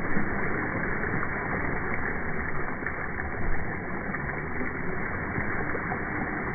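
Remote-control car with soccer balls fixed to its wheels churning through a muddy puddle: steady splashing and sloshing of water thrown up by the spinning balls.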